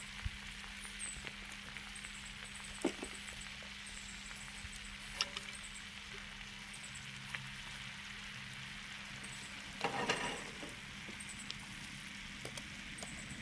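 Food sizzling on a grill: a steady hiss with scattered small pops, and a louder burst of crackling about ten seconds in.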